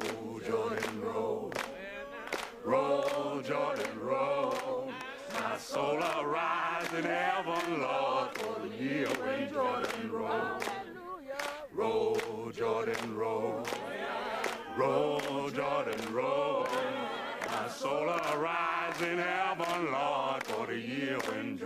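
A group of voices singing a song without instruments, with sharp knocks throughout.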